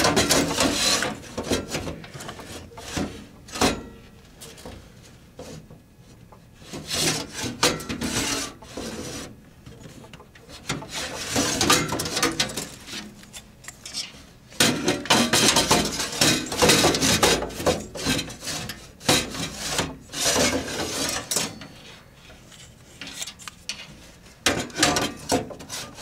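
A hard drive being slid back and forth in the steel drive bay of a computer case: metal scraping and rubbing on metal in irregular stretches, with knocks and clicks as it seats against the rails.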